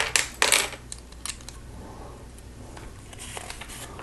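Small plastic Lego pieces clattering and clicking against each other as they are handled and sorted, loudest in the first second, with softer rattles near the end.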